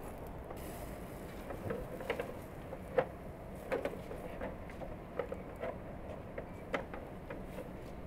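Steel kebab skewers clinking and knocking against the metal edge of a charcoal mangal as they are turned over the coals. The clicks come irregularly, the sharpest about three seconds in.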